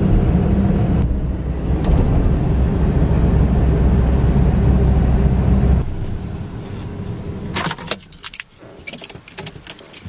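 A pickup truck heard from inside the cab while driving: a steady low engine and road rumble that drops off about six seconds in as the truck slows. Near the end comes a series of sharp clicks and rattles.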